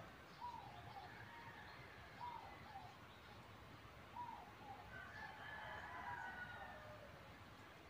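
Faint, distant bird calls over quiet room tone. Short calls repeat every second or two, with a longer, higher call about five seconds in.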